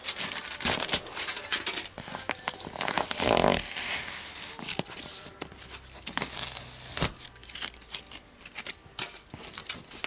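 Layered aluminum foil on a duct-board joint crinkling and crackling as it is handled and pulled by hand, with irregular sharp crackles and a denser rustle a few seconds in.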